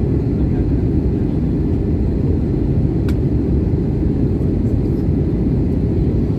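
Steady low cabin noise of a jet airliner in flight, from its turbofan engines and the airflow, heard from inside the cabin. A faint click comes about three seconds in.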